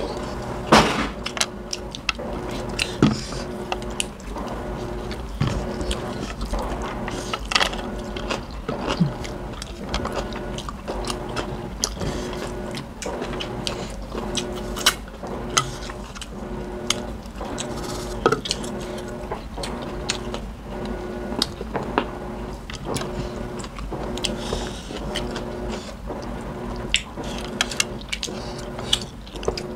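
Close-miked eating sounds: chewing and biting, with scattered small clicks and taps of fingers and food against plates.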